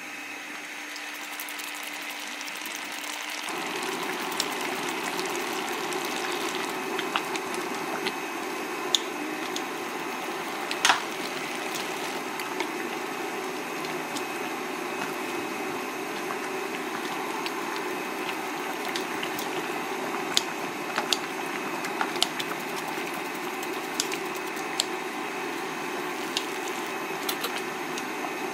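Broth with sotanghon glass noodles boiling in a wok, a steady bubbling hiss over a faint steady hum. Scattered light clicks come from the spatula knocking the pan, one sharper knock near the middle.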